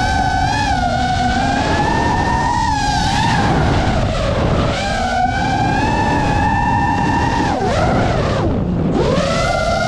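GEPRC Mark5 5-inch FPV quadcopter's brushless motors and propellers whining, the pitch rising and falling as the throttle changes. Near the end the whine drops steeply and climbs back within about a second.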